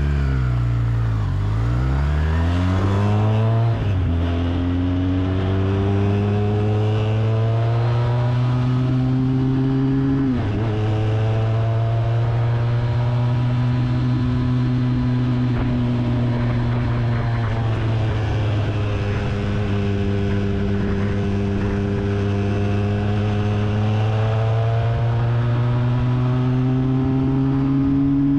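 Zongshen-built 400 cc engine of a Kawasaki Z1000 replica motorcycle under way. Its pitch dips, climbs, drops suddenly at gear changes about four and ten seconds in, then holds a steady cruise with slow rises and falls.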